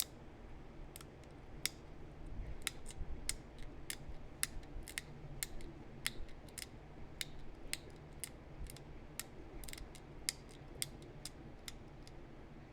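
Pressure flaking a small heat-treated chert point: irregular sharp clicks, two or three a second, as the flaker tip bites on the stone edge and takes off tiny flakes.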